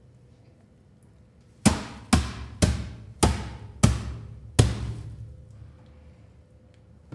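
Six heavy Foley impact hits in quick succession, about half a second to three quarters of a second apart, each dying away with a short ring.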